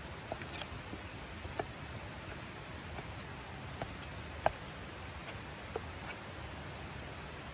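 Cleaver cutting raw chicken on a wooden board: scattered soft knocks of the blade against the wood, one sharper chop about four and a half seconds in, over a steady background hiss.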